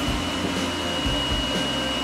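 Pet grooming dryer running steadily, a constant rush of blown air with a high motor whine, as the coat is dried after a bath. Low irregular thumps come through the airflow.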